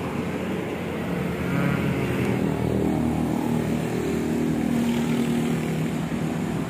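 A large truck's diesel engine idling with a steady low drone.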